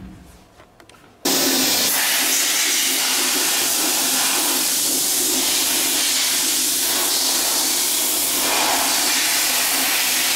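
Media blast cabinet's gun blasting abrasive with compressed air onto a polished metal intake pipe, cutting in suddenly about a second in as a loud, steady hiss. It is roughing up the surface so powder coat will stick.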